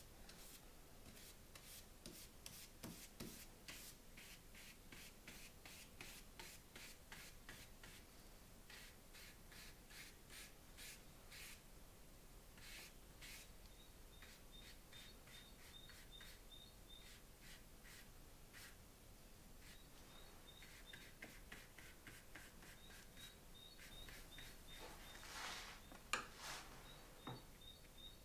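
Faint, quick scratchy strokes of a fine drawing tool on the paper of a linocut print, several a second, thinning out after about twelve seconds. A short, louder rustle comes near the end.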